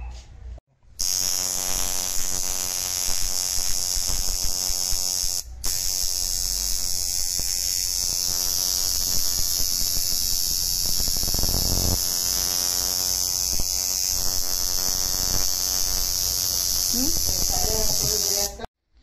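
Electric tattoo machine buzzing steadily while its needles line a stencilled outline on skin. It drops out for a moment about five seconds in, then runs on until it cuts off shortly before the end.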